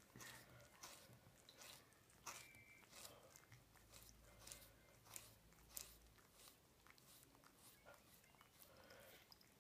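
A cat licking ketchup off the nozzle of an upside-down plastic squeeze bottle. It is a faint, steady run of wet tongue clicks, about one or two a second.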